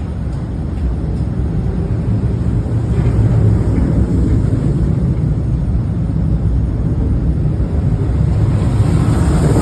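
Roller coaster running: a loud, steady, deep rumble that swells about three seconds in and again near the end, with a rushing hiss joining it at the close.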